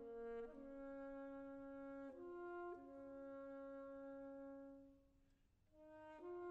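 Concert wind band playing a quiet, slow passage of held brass notes that change pitch every second or two, with a short lull about five seconds in before new notes enter.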